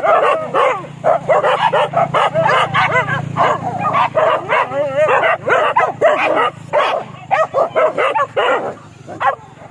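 A pack of leashed boar-hunting dogs yelping and barking, many short high calls overlapping; the calls thin out near the end.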